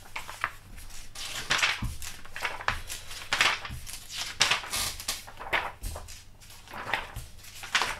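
Pages of a large-format paper instruction booklet being flipped one after another, a quick papery swish with each turn, about one or two a second.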